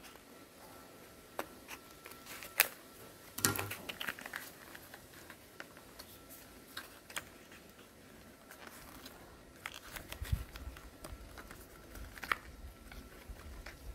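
Light clicks, taps and rustles of a small paperboard product box being handled: tweezers picking at a seal sticker, then the box's tuck flap opened and the insert pulled out. The sharpest click comes about two and a half seconds in, and a soft low bump about ten seconds in.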